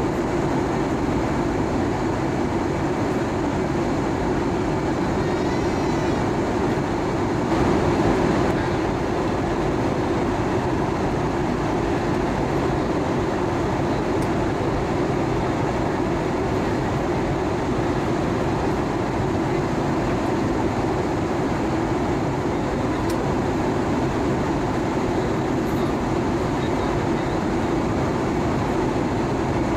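Steady cabin noise of an Airbus A320-232 in flight, heard from a window seat beside the wing: the IAE V2500 turbofan running and air rushing past the fuselage. It swells briefly about eight seconds in.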